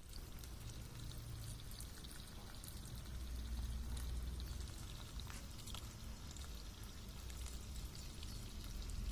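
Water running: a steady pouring splash with many small drips and droplet ticks throughout.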